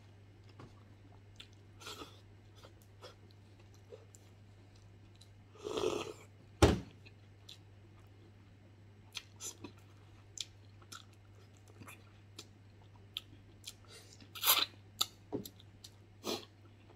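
Close-up mouth sounds of chewing, with wet clicks and smacks, as soft, gelatinous beef skin and tendon from the stewed beef feet are eaten. A single sharp thump comes about seven seconds in, and a run of louder smacks near the end.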